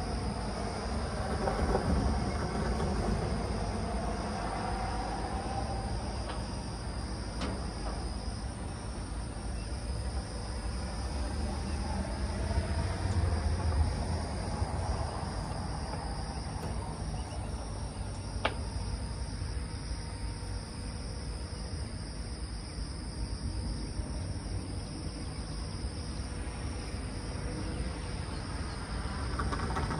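Insects buzzing steadily and high over a low traffic rumble. Passing vehicles swell and fade about two seconds in and again around thirteen to fifteen seconds in.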